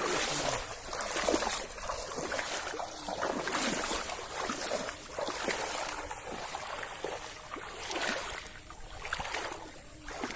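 Water splashing and sloshing in uneven surges.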